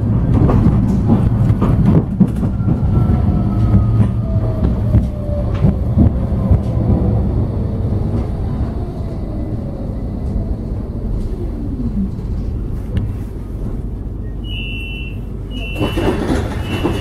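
Nottingham Express Transit tram running, heard from inside the passenger saloon: a steady low rumble with wheel clicks, and a faint whine from the drive that falls in pitch as the tram slows for a stop. Near the end a short high beep repeats three times, the door signal at the stop.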